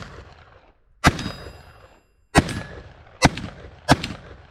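Four shots from a Kel-Tec .22 Magnum firing hollow points at a steel railroad rail, unevenly spaced, each sharp crack followed by a short echo, with a thin high metallic ring after some shots.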